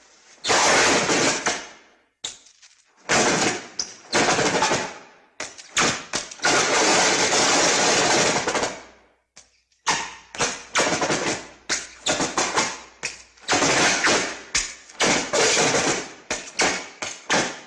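Classic Star Wars original-trilogy lightsaber clash and strike sound effects: a string of sudden, loud, noisy hits. The first several are drawn out for one to three seconds each, and from about halfway they come as shorter strikes in quick succession.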